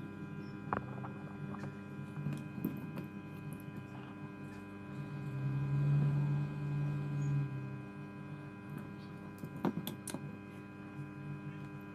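Steady electrical mains hum, with a few light clicks and taps from the phone circuit board and soldering iron being handled; a louder low hum swells about five seconds in for two seconds or so.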